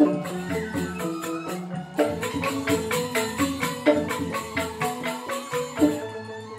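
Balinese joged bumbung gamelan music: bamboo xylophones (grantang) struck in fast interlocking patterns over a steady beat, with drum and small cymbals.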